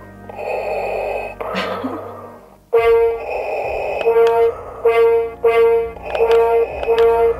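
Hasbro Star Wars Darth Vader Simon electronic toy playing loud brass-like tones, one note repeated in a rhythm with other notes layered in, starting with a sudden jump in level nearly three seconds in, as its buttons are pressed during the game. Before that, a steady hissing sound.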